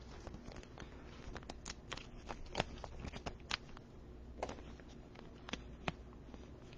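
Scattered light clicks and rustles of a trading card and plastic being handled: the card slid into a soft penny sleeve and then into a rigid plastic top loader. A few sharper ticks stand out among them.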